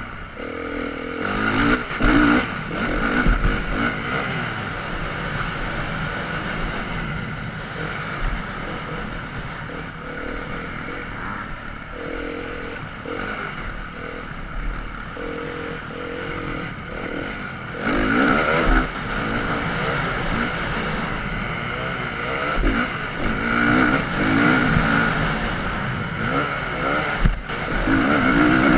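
Motocross dirt bike engine running hard as the bike is ridden around a dirt track, its pitch rising and falling with the throttle, with louder surges of revving about two seconds in, around eighteen seconds, and near the end.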